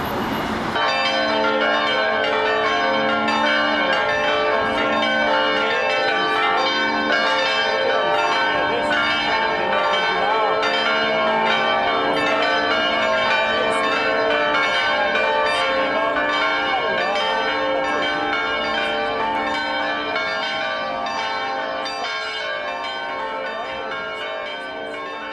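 A set of new church bells ringing together in a continuous peal of overlapping strikes, starting about a second in and fading toward the end.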